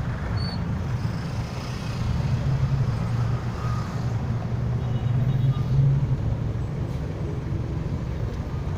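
Jeepney engine running with a steady low rumble, heard from the passenger cabin while under way, swelling briefly a couple of times, with an even hiss above it.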